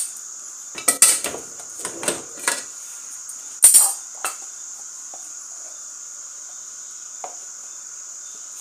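Wooden spoon scraping and knocking against a metal pot while scooping stiff ugali, with several sharp knocks, the loudest about three and a half seconds in, over a steady high hiss.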